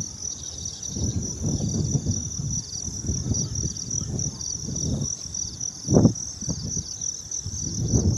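Wind gusting against the microphone in uneven low buffets, with a sharper gust about six seconds in, over a steady chorus of insects chirping in fast pulses.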